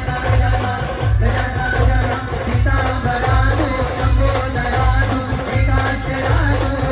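Live band music: a heavy, steady drum beat with tambourine-like jingles, and a melody with a sung vocal line over it.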